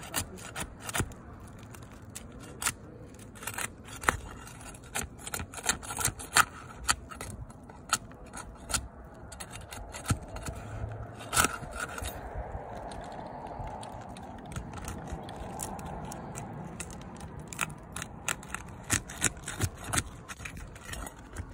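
Flat metal pry bar working under asphalt shingles, with irregular scraping and sharp clicks as the shingles are lifted loose around a pipe jack's flashing.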